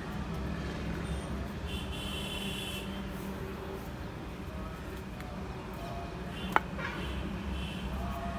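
Steady low rumble of distant traffic, with one sharp click about two-thirds of the way through.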